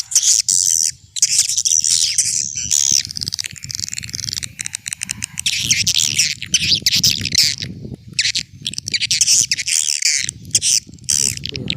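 Swiftlet call-lure recording: dense, rapid high-pitched twittering and chirping of swiftlets, the sound played to draw swiftlets into a nest house. A low rumble runs underneath, and the chirping breaks off briefly about a second in and again near the end.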